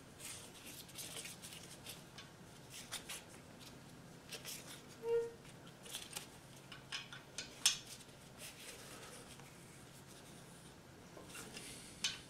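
Faint, scattered metallic clicks and scrapes of an L-shaped key turning a threaded oil-tube plug into a Ford flathead engine block, with a rag rubbing. A brief squeak comes about five seconds in.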